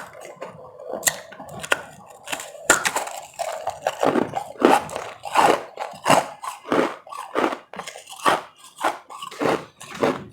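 Close-miked crunching and chewing of powdery ice: a few sharp crunches in the first seconds, then steady chewing about one and a half strokes a second from around four seconds in.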